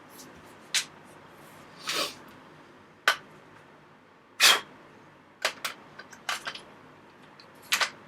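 Mossberg Maverick 88 pump shotgun's barrel being worked onto the magazine tube and into the receiver: a string of sharp metal clicks and knocks, with two longer scrapes about two and four and a half seconds in, as the barrel is lined up.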